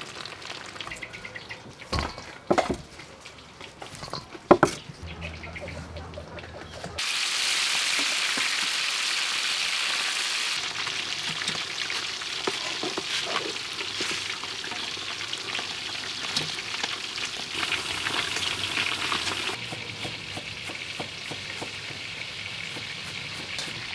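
Fish strips deep-frying in hot oil in a wok, a steady sizzle that is loudest from about a third of the way in. The quieter opening has a few sharp pops.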